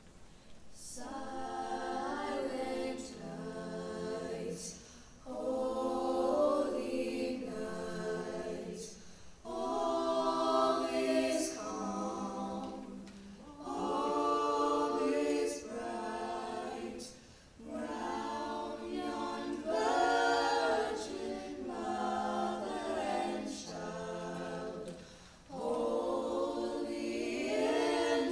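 High school choir singing holiday music, in sung phrases of a few seconds each with short breaks between them.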